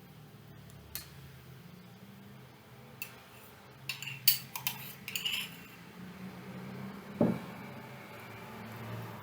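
Scattered clinks and knocks of a dish and utensil while milk is eaten, with a quick cluster of clinks about four to five seconds in and a duller knock about seven seconds in, over a faint low hum.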